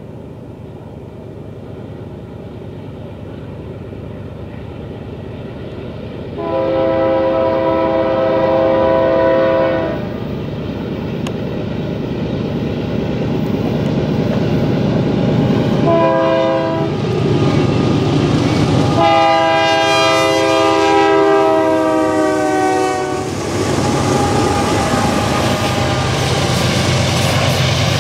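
Union Pacific freight train approaching and passing, the diesel locomotives' air horn blowing a long blast, a short one, then another long one that drops slightly in pitch as the locomotives go by: the horn signal for a grade crossing. Under the horn the locomotives' rumble grows louder, and near the end the freight cars roll past with wheels clacking on the rails.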